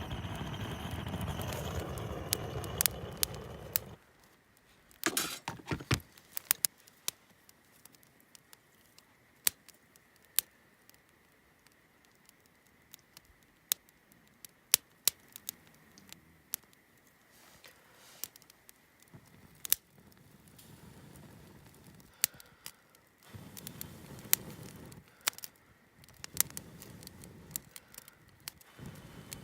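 A low steady rumble that cuts off suddenly about four seconds in, then the irregular sharp pops and clicks of a wood campfire crackling; the low rumble comes back near the end.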